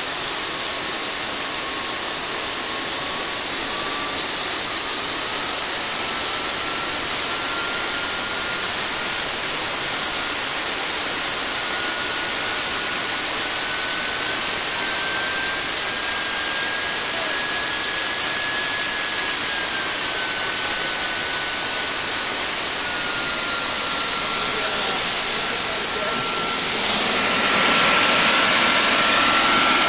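Home-built centrifugal-compressor gas turbine (turbojet) running at about 60,000 rpm: a loud, steady rushing roar with a high turbine whine. The whine rises slowly in pitch, then settles a little lower, and the engine briefly drops in loudness near the end.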